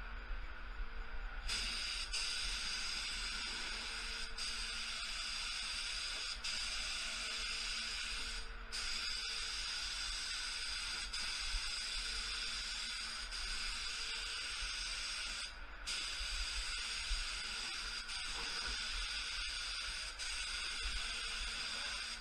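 Gravity-feed HVLP spray gun hissing steadily as it sprays sealer at 29 psi. The hiss starts about a second and a half in and cuts out briefly twice as the trigger is let off between passes.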